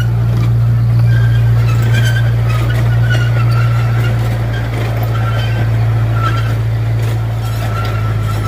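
Small tourist train running with a steady low drone, with a high squeal that comes and goes, typical of wheels on a curving track.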